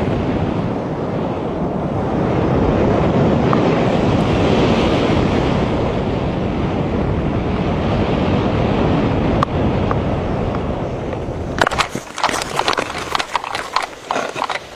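Wind rushing over the parachutist's microphone during the descent under canopy, a steady loud rush. About twelve seconds in it gives way to uneven scuffing and rustling from the landing on grass.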